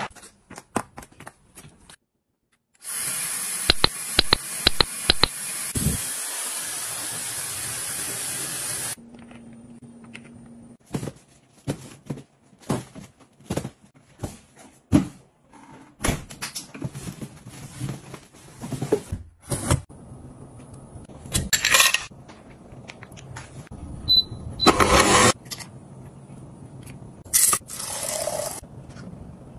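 A run of household handling sounds. It opens with a steady spray-like hiss for about six seconds, then many short taps, clicks and scrapes as cardboard boxes are handled. Near the end comes a short rush of water being poured into a kettle.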